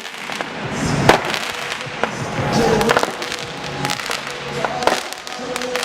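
Fireworks and firecrackers going off in rapid succession: many sharp bangs and crackling, the loudest bang about a second in, with music playing over them.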